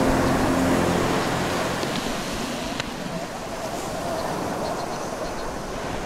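Ocean surf washing below the rocks, a steady rushing noise, with a vehicle engine's steady hum fading out within the first second.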